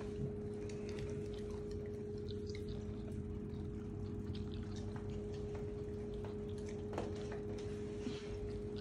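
A steady low hum with a held tone, over faint scattered clicks and crunches of a Labrador retriever puppy mouthing and chewing a raw green bean.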